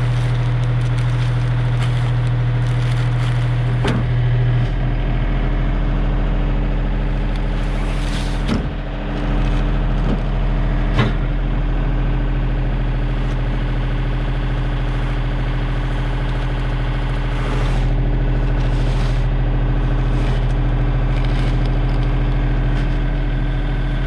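An engine idling steadily, a low even hum, with a few brief knocks about 4, 8 and 11 seconds in.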